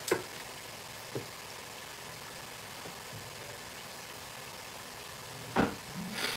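Oil sizzling steadily in a Proctor Silex electric deep fryer as a basket of crinkle-cut french fries cooks. A sharp click comes just after the start and a louder knock about five and a half seconds in.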